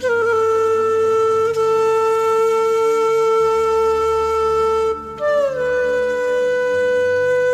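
Background music: a flute-like wind instrument plays slow, long held notes, each sliding down into place, over a low drone. One note holds for about five seconds, breaks off briefly, and a new note slides in.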